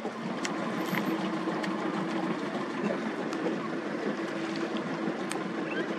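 A boat engine running with a steady hum, with scattered small clicks and knocks.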